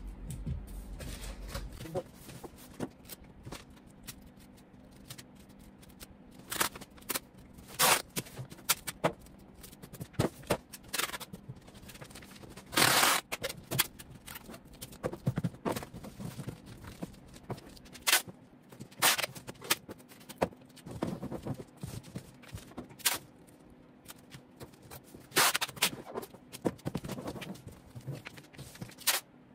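Packing tape being torn off the roll in separate loud rips, some about half a second long, while a cardboard cargo box is taped shut. Cardboard flaps are handled and rustle between the rips.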